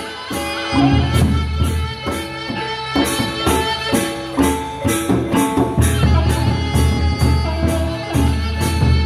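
Sasak gendang beleq ensemble playing: large barrel drums beating deep strokes under clashing hand cymbals and ringing gongs, with the cymbals keeping a steady rapid pulse.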